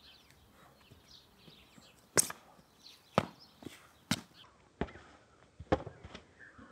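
Foam training sabres striking each other and their guards during sparring: a string of sharp, irregular knocks and thwacks, the loudest about two seconds in.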